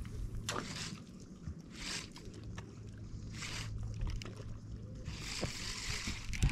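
Water washing and slapping softly against a boat's hull, in repeated washes about every second and a half, over a steady low hum.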